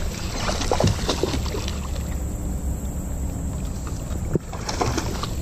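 A hooked largemouth bass being reeled in on a baitcasting rod and reel, splashing and swirling at the surface, heard as a few short sharp splashes and clicks over a steady low rumble.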